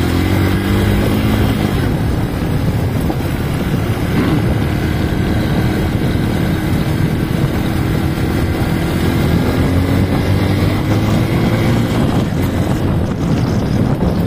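Motorcycle engine running under way, its pitch climbing near the start and again later as it speeds up, over a steady rush of wind on the microphone.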